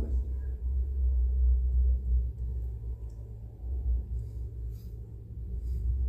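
A low, uneven rumble, with a few faint short high chirps now and then.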